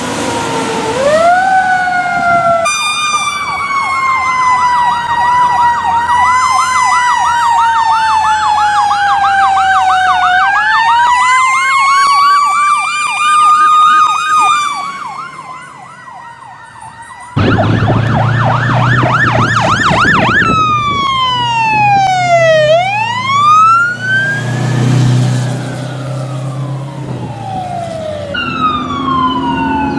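Fire apparatus sirens from several trucks in turn: an electronic siren in a fast yelp, then a slow wail rising and falling. After a brief dip about halfway through, another siren yelps and wails, with a deep horn sounding underneath twice.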